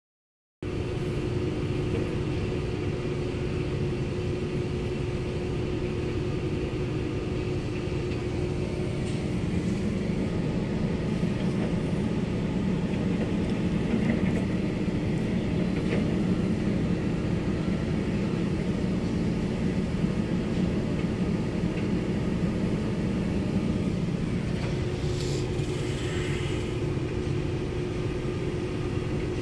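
Sumitomo excavator's diesel engine running steadily, heard from inside the cab. The low rumble grows louder for a stretch in the middle.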